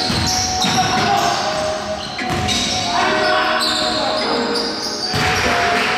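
Basketball bouncing on a hardwood gym floor during play, with players' voices echoing in a large gym.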